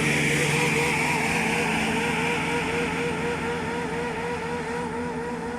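Double Class 168 diesel multiple unit pulling away, its engine noise slowly fading, with a wavering 'woo woo woo' tone that pulses several times a second. The spotter guesses the engine might be overheating.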